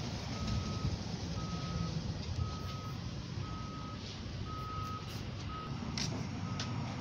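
Low rumble of a PKP Intercity Stadler FLIRT (ED160) electric multiple unit pulling out past the platform, with a repeating electronic beep about once a second over it. A couple of sharp clicks come near the end.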